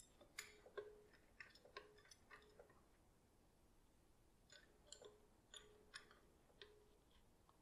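Faint metallic clicks and clinks from a hydraulic floor jack as its handle is pumped, in two runs of about six strokes with a short pause between, some clicks ringing briefly.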